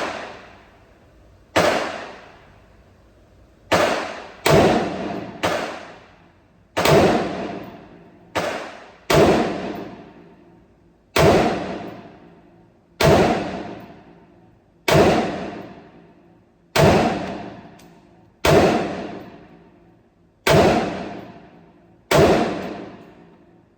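A string of about fifteen gunshots from a 10.5-inch AR pistol being fired while zeroing its sight. The sharp cracks come every one to two seconds, a few in quicker pairs, and each rings out for about a second.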